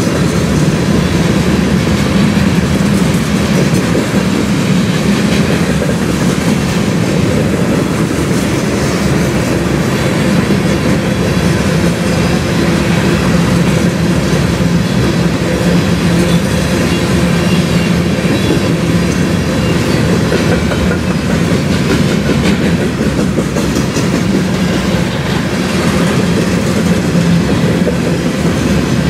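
Freight train of covered hopper cars, a CN sand train, rolling past at steady speed: an even rumble with wheels clicking over rail joints throughout.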